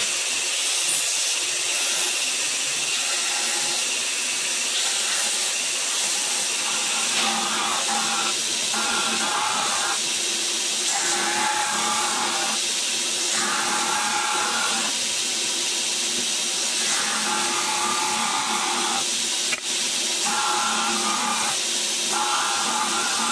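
Belt grinder running steadily, with the knife's glued-up G10 handle pressed against the belt in repeated passes to profile the handle shape. A steady hiss, with a higher grinding tone that comes and goes every second or two from about a third of the way in.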